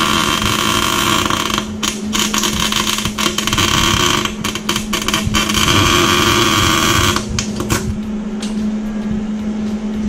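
Arc welder crackling and sizzling as the spider gears in the Blazer's rear differential are welded solid to lock it (a welded 'Lincoln locker'). The arc breaks off briefly a few times and stops about seven seconds in.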